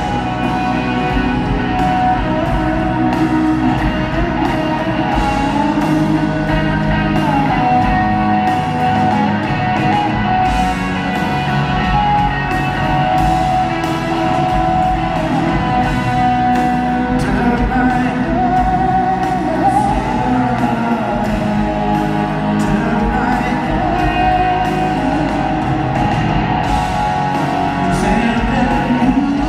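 Rock band playing live, with a male lead singer over electric guitar, bass, keyboard and drums. The music is loud and continuous, heard from the audience in a large hall.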